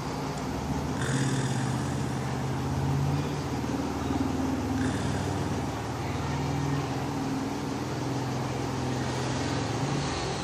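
A person snoring in long, drawn-out buzzing breaths that swell and fade every couple of seconds, with a breathy hiss of air about a second in and again near five seconds.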